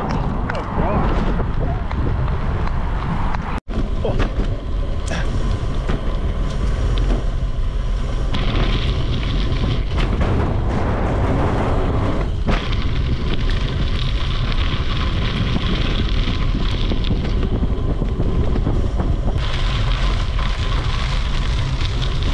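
Wind buffeting an action camera's microphone while riding a mountain bike, with tyre and road rumble underneath. The noise is loud and steady, broken by a brief cut to silence about three and a half seconds in.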